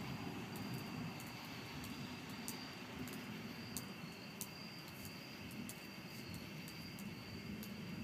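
Distant thunder rumbling low and fading away over the first few seconds, then a faint steady rumble, over a steady high-pitched drone.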